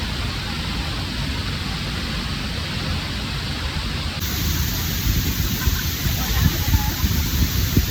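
Waterfall's steady rush of falling water. In the second half, uneven low rumbles break over it.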